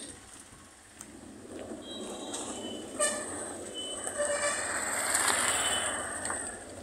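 A motorcycle comes up a gravel lane and passes close by, its engine and tyre noise rising to a peak about five seconds in and then fading. Its horn gives two short toots, about three and four seconds in.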